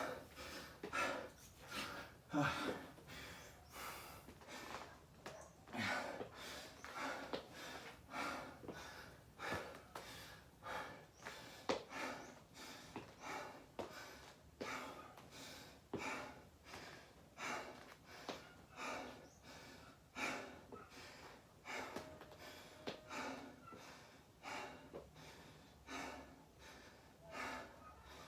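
A person breathing hard and fast, a steady run of loud breaths about once a second, catching their breath after a set of burpees.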